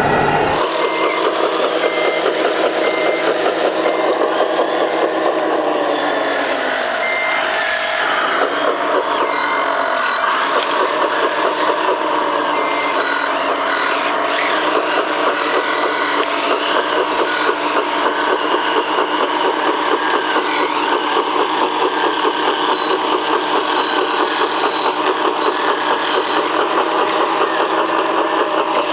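Electric motors and gearboxes of scale RC construction machines whining steadily, their pitch shifting as they change speed, with a reversing beeper sounding in short regular pips for the first few seconds.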